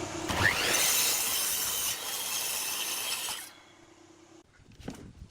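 A power tool cutting wood for about three seconds, with a steady motor hum under the cut. The hum runs on alone for about a second after the cutting stops, then a few light knocks.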